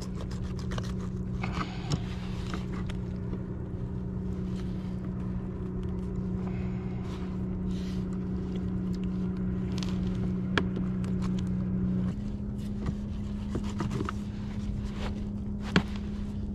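Knife scraping and cutting as a black sea bass is gutted, with scattered clicks and knocks of handling. Under it runs a steady low hum that steps up slightly in pitch about twelve seconds in.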